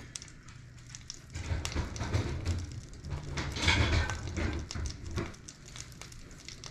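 Rummaging through kitchen drawers and cupboards for hand-mixer beaters: irregular clatter and knocks of utensils, with a burst of rattling about four seconds in.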